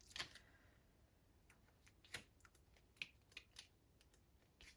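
Near silence broken by faint, irregular clicks and taps, about half a dozen spread over a few seconds, the sound of small objects being handled.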